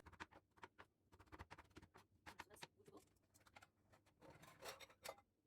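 Near silence, with faint, scattered, irregular ticks and taps.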